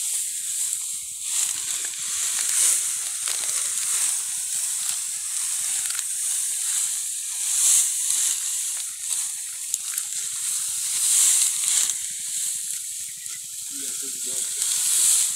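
Dry, ripe wheat stalks rustling as they are cut by hand with sickles and gathered into heaps. The rustle is a hiss that swells and fades every couple of seconds with each armful.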